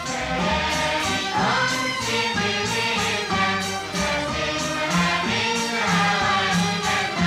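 Waltz music with voices singing over it, and a low bass note pulsing about every two-thirds of a second.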